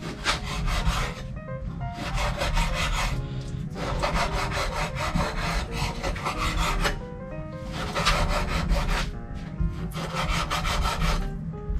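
Knife sawing back and forth through raw beef on a cutting board, in about five bouts of quick strokes with short pauses between them.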